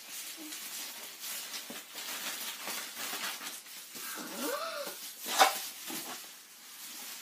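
Plastic wrapping crinkling and rustling as a parcel is unwrapped, with one sharp, loud crackle about five seconds in. Just before it there is a short rising-and-falling vocal sound.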